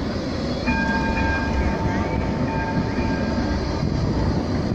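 Bombardier Flexity 2 tram passing close by on street track, with a steady rumble of wheels on rail. A steady high whine comes in about a second in and holds for about three seconds.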